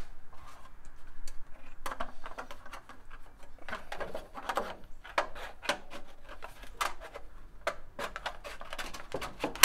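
Hand tin snips cutting strips of sheet-metal flashing: a run of short, crisp snipping clicks at an uneven pace, several a second, with the thin sheet rattling as it is handled.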